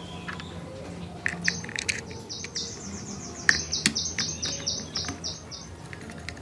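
A bird calls in a quick, even series of high chirps, about five a second, for around four seconds. Sharp plastic clicks and taps sound as the toy car's plastic chassis parts are pressed together; the loudest click comes about halfway through.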